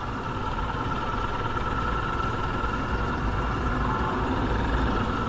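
Yamaha FZ25 motorcycle's single-cylinder engine running steadily.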